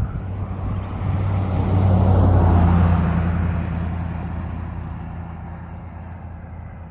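A motor vehicle passing by on the road, its engine hum and tyre noise growing louder to a peak about two to three seconds in and then fading slowly as it moves away.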